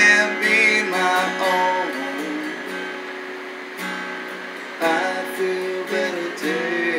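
Acoustic guitar strummed in sustained chords, with a man singing over it in the first couple of seconds and again near the end.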